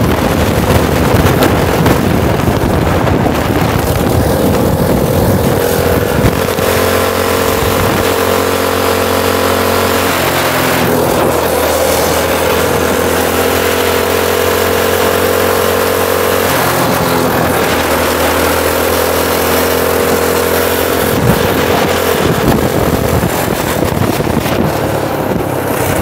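Go-kart's Predator 212 single-cylinder engine running under way, a steady engine note whose pitch steps up and down several times as the throttle changes, over a steady rush of wind and road noise.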